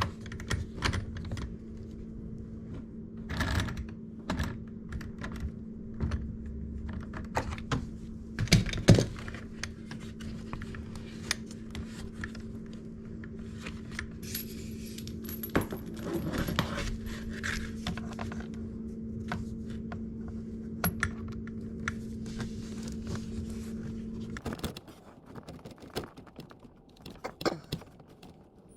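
Scattered light clicks, taps and small rattles of a dishwasher hose and its fittings being handled and routed, over a steady low hum that stops about 24 seconds in.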